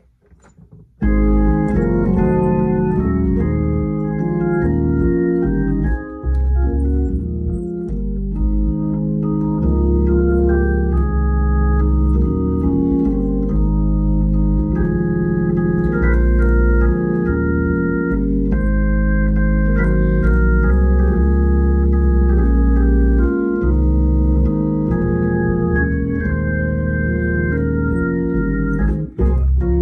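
Hammond tonewheel organ playing held chords over a deep bass, starting about a second in, the chords changing every second or two.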